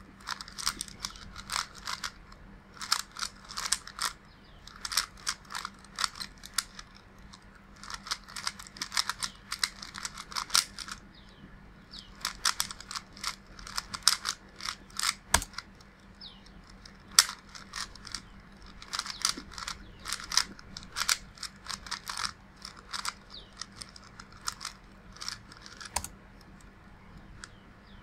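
A 30th Anniversary Rubik's Cube being turned fast in a speedsolve: bursts of rapid plastic clicking and clacking with short pauses between runs of turns. The cube has only a few drops of Silk lube and still turns stiffly. About fifteen seconds in comes a single knock.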